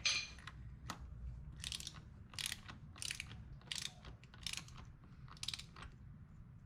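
Hand ratchet wrench clicking in a series of short back-and-forth strokes, running the primary gear nut down until it just seats.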